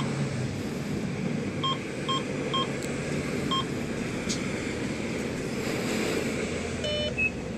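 Gas pump keypad beeping as buttons are pressed: short, even beeps, one at the start and four more in the first few seconds, then a lower, different beep near the end as the pump answers. Steady background noise runs beneath.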